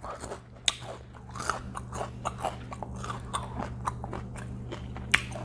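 Close-up chewing and biting of crispy fried chicken: irregular crunches and wet mouth sounds over a steady low hum.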